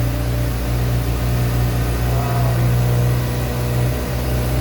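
Kawasaki ZX-6R 40th Anniversary Edition's inline-four engine idling steadily, with no revs.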